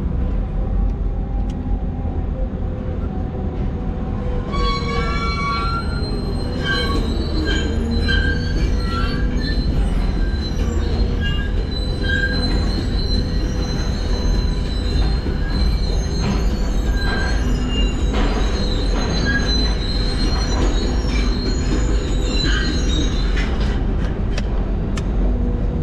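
Excavator working in a steel ship's hold: its diesel engine runs steadily while, from about four seconds in, shrill metallic squealing and screeching of steel scraping on steel comes and goes over it.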